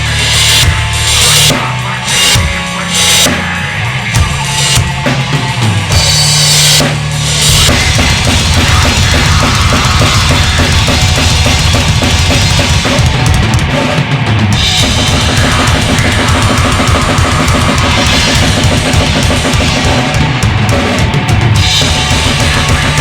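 Drum kit played along with a heavy rock song: cymbal crashes and drum hits over the band, then about seven seconds in a fast, steady bass drum rhythm takes over.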